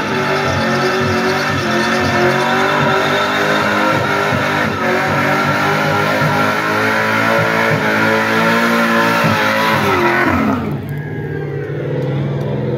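A car doing a burnout: engine held at high revs while the rear tyres spin and screech on the pavement. About ten and a half seconds in the revs fall away, the tyre noise stops, and the engine carries on at a low, steady note.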